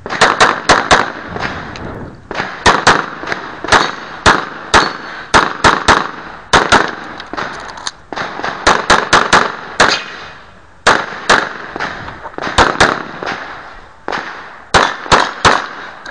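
9mm handgun shots fired in quick strings of several a second, with short pauses between strings and a brief echo trailing each shot.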